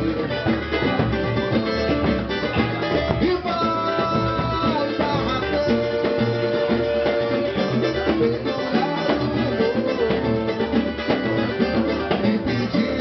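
Live samba band playing a passage without lyrics: plucked strings over a steady percussion groove.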